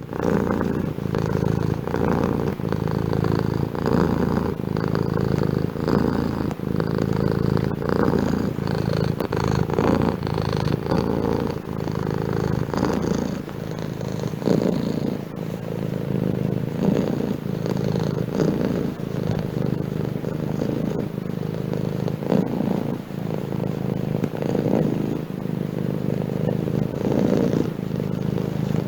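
Domestic cat purring, with a continuous low buzz that swells and eases in a repeating rhythm.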